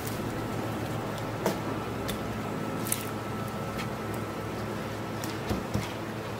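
Steady background hum with a faint high steady tone, broken by a few light clicks and two soft knocks near the end.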